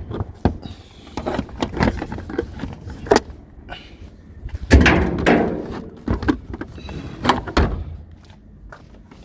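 Discarded junk being handled and pulled about: irregular knocks, clicks and clatter, with a longer, louder noise about five seconds in.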